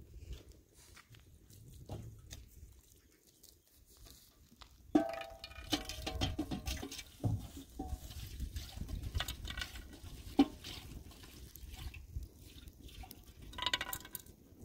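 Water pouring and splashing, with light clinks of glasses and metal dishes: a clatter about five seconds in, a sharp clink about ten seconds in, and more ringing near the end.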